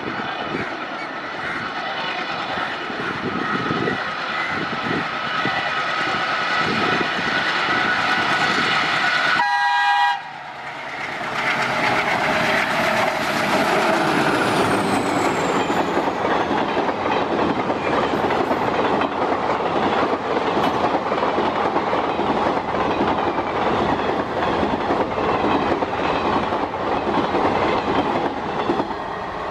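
Indian Railways WDG-3A ALCo diesel locomotive sounding its horn in one long blast as it approaches, growing louder. About ten seconds in the sound changes abruptly: the locomotive passes close at speed with its engine running, and then the passenger coaches rush by with their wheels clicking over the rail joints.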